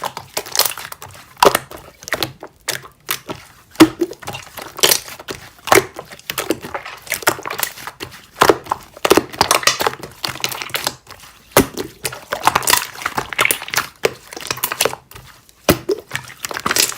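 Slime being squished, folded and pressed by hand, giving irregular crinkling, crackling sounds with sharp pops now and then.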